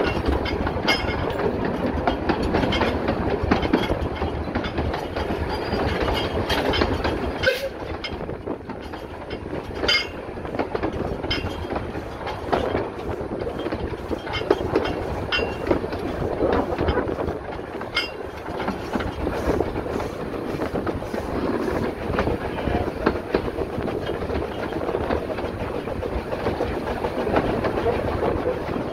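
A 2 ft gauge Avonside steam locomotive and its train running along the track: a steady rumble and rattle of wheels and coaches, with sharp clacks now and then over the rail joints.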